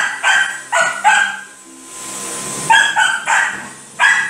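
Small dog barking in short, high yips: a quick run of three, a pause of about a second and a half, then four more.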